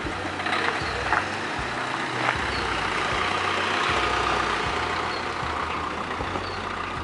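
A vehicle engine running steadily, a low hum under outdoor street noise, with a few faint bird chirps.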